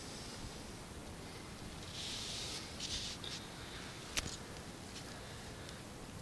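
Faint rustling of footsteps through dry pine needles and twigs on the forest floor, a few soft scuffs in the middle and one sharp click a little after four seconds in.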